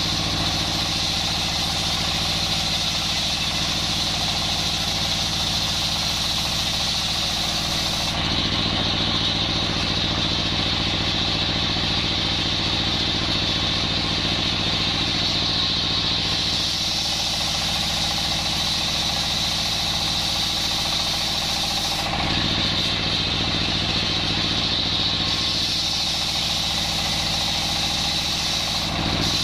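Large circular sawmill running steadily, with its drive humming low and the big saw blade spinning with a high whine. The high hiss drops away about eight seconds in and comes back, then does so again later.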